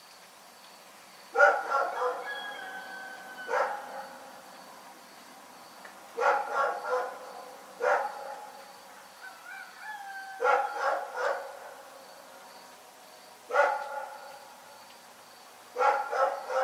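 A dog barking repeatedly: about seven bouts a couple of seconds apart, clusters of three or four quick barks alternating with single barks.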